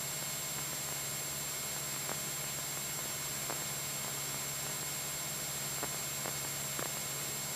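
Steady hiss over the low, even drone of the Cessna 172SP's four-cylinder Lycoming engine in cruise, with a few faint ticks.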